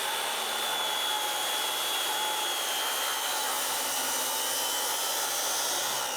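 Circular saw set to a 15-degree bevel running through a long rip cut in a wooden board, its motor whine sinking slowly under the load of the cut. Near the end the trigger is released and the blade begins to wind down.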